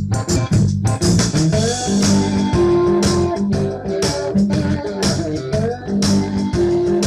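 Upbeat background music with a steady beat, guitar to the fore.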